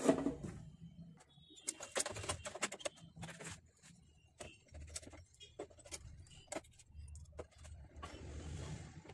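Scattered clicks, taps and knocks of hands handling a laser printer's power supply circuit board and fitting it into the printer's plastic chassis, over a low hum, with a soft rustle near the end.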